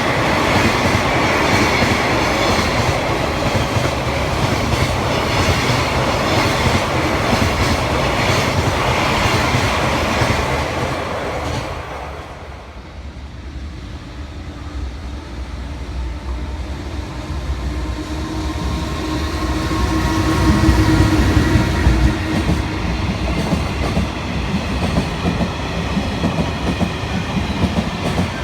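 Freight train passing, its wheels clattering over the rail joints. The noise falls away about twelve seconds in, then builds again with a steady hum as another train draws near.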